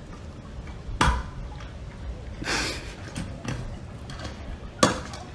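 Two sharp knocks, one about a second in and a louder one near the end, with a short rush of noise between them over a faint steady background.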